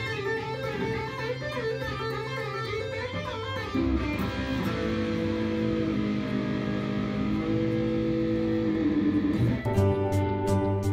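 Electric guitar fitted with a newly installed Floyd Rose FRX locking tremolo bridge, played as a test: quick wavering notes for the first few seconds, then held, ringing chords. Near the end it cuts abruptly to background music with a steady beat.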